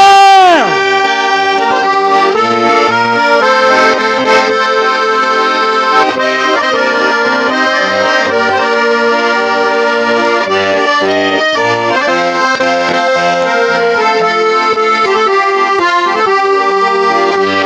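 Accordion playing an instrumental break in a Russian gypsy-style folk song: a melody over a steady oom-pah of bass notes and chords. About half a second in, a sung note held from the end of the verse slides down and stops.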